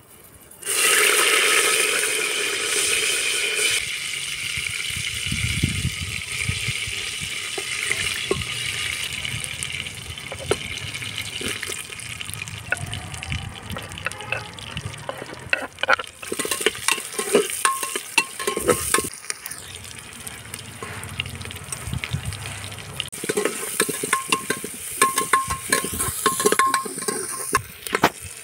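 Sliced onions frying in hot oil in an aluminium pressure cooker. A loud sizzle starts about a second in and settles, then a metal slotted ladle scrapes and clinks against the pot as the onions are stirred.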